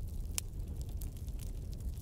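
Wood fire in a fireplace crackling over a low, steady rumble, with one sharp pop about half a second in.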